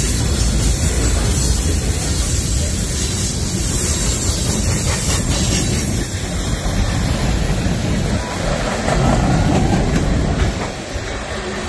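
Freight train rolling past at close range: a steady, loud rumble and rail noise from the cars going by.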